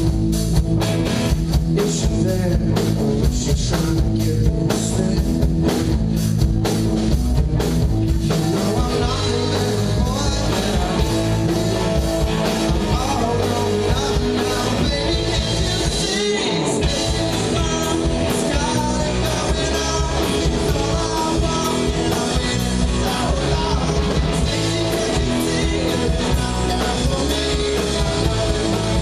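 Live rock band playing: electric guitar and drum kit, with singing.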